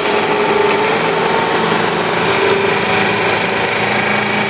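Rong Fu RF-19V drill press running unloaded at high speed, a little over 2,000 RPM, its inverter-driven 1 HP motor and belt-driven spindle giving a steady hum with several constant tones.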